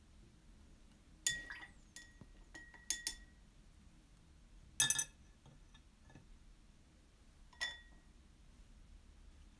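Paintbrush clinking against a glass water jar: about six light taps at uneven intervals, each with a short ring.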